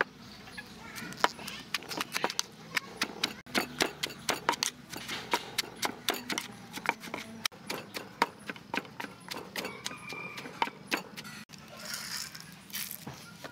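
Wooden pestle knocking in a clay mortar while pounding green papaya salad: irregular sharp knocks, a few a second. Near the end, a short rattle as peanuts are tipped into the mortar.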